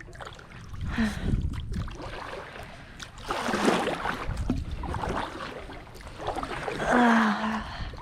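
Kayak paddle strokes in the water, a few separate swishing splashes a couple of seconds apart.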